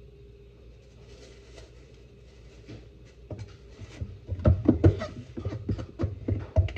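A quick, irregular run of knocks and thumps from kitchen handling during tortilla making, starting about halfway through and loudest near the end, over a faint steady hum.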